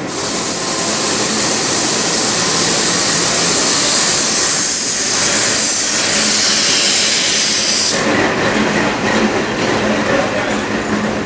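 Indian Railways passenger coaches rolling past along a platform, with a loud steady hiss over the rumble of the wheels. The hiss stops abruptly about eight seconds in, leaving a quieter, uneven rolling rumble.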